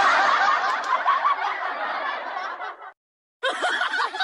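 Canned laughter sound effect played from an audio interface's built-in effect buttons: a group laughing, cut off abruptly about three seconds in. After a short gap a second, choppier laugh effect starts.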